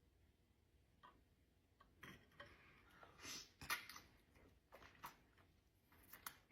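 Near silence with a few faint, scattered clicks and soft eating sounds: a person chewing food.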